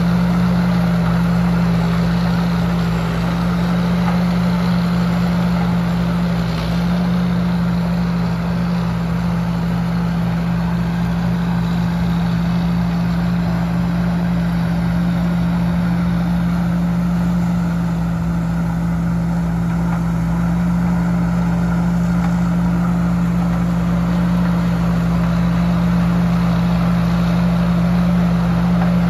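Tamco S7000 combine harvester's diesel engine running steadily under load while it harvests corn. It makes a loud, even drone with a strong low hum and a mechanical rattle of the cutting and threshing gear over it.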